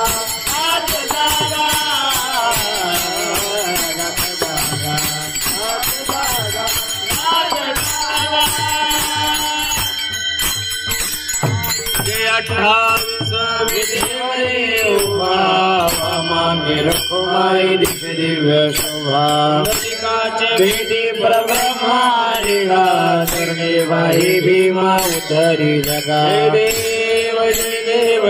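Men's voices singing a Marathi Varkari bhajan in unison, accompanied by small brass taal hand cymbals struck in a fast steady rhythm and a two-headed mridang (pakhawaj) drum.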